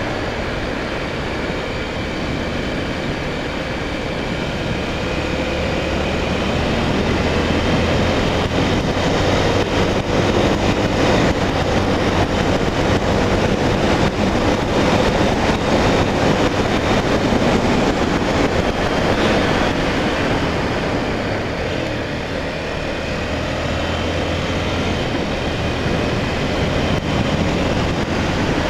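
Honda Tornado 250's single-cylinder four-stroke engine running under way, mixed with wind and road noise. It grows louder about six seconds in and eases briefly a little past twenty seconds.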